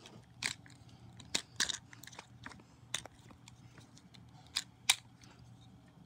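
Sharp, irregular clicks and clatters of plastic toy parts being handled and snapped into place, about eight over a few seconds, with a faint low hum underneath.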